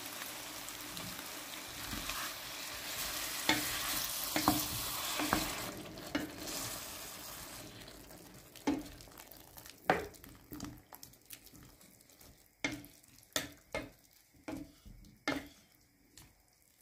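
Hot water poured into a stainless steel pan of frying vegetables and potatoes, hissing and sizzling steadily, then dying down about halfway through. A wooden spoon then stirs the pan with scattered knocks against the metal.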